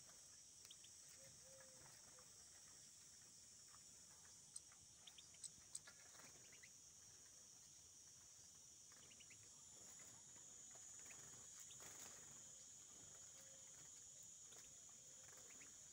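Near silence: a faint, steady, high-pitched insect drone, with a few faint short chirps around five seconds in and again around nine seconds.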